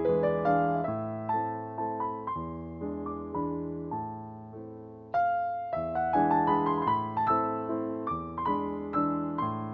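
Background piano music: gentle, slow notes that ring and fade, growing fuller about five seconds in.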